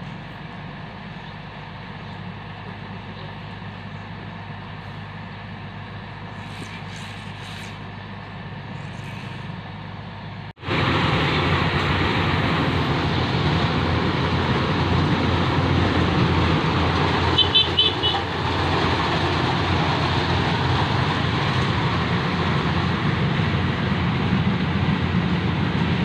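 Rice combine harvester's engine and threshing machinery running steadily as it harvests. About ten seconds in the sound cuts out for an instant and comes back much louder and noisier.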